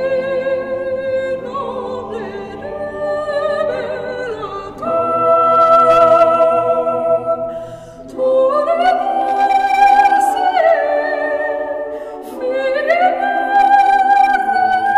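Background music: sung vocals in a choral or operatic style, holding long notes that slide up to each new pitch.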